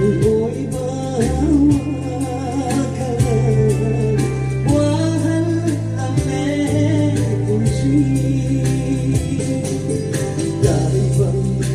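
Song with a singing voice over instrumental backing: sustained bass notes and a steady beat.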